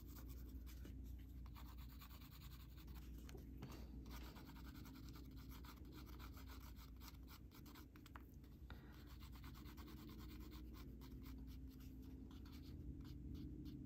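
Faint scratching and rubbing of graphite on drawing paper, as a pencil portrait sketch is shaded and smudged, in many short strokes.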